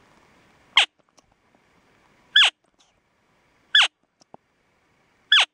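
Primos Hoochie Mama push-button elk cow call on its lost cow setting, pressed four times. It gives four short, high calls about a second and a half apart, each sliding steeply down in pitch, imitating a lost cow elk.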